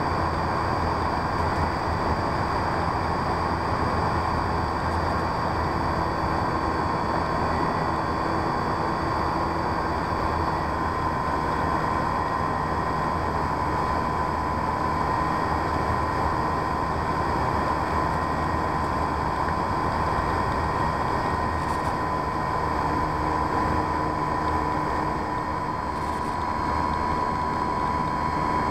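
Motor and propeller of a radio-controlled P-51D Mustang model heard from its onboard camera in a long climb: a steady high whine over constant rushing wind noise.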